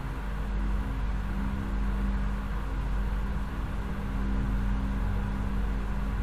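A steady low hum with an even background hiss, unchanging throughout, with no distinct events.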